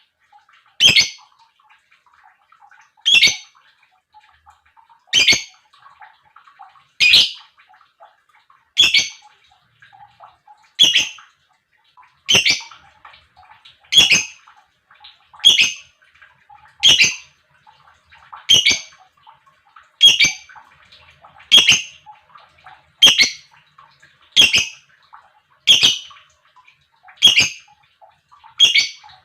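Lovebird giving short, sharp, high calls, one about every one and a half to two seconds, the gaps shortening slightly as it goes on.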